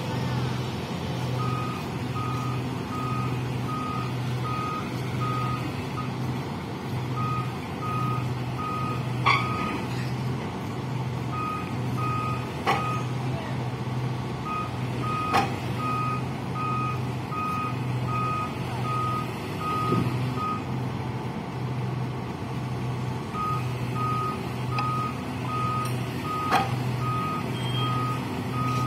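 A heavy-equipment backup alarm beeping in runs, about one and a half beeps a second, stopping briefly a few times, over a heavy diesel engine running. A few sharp knocks sound in between.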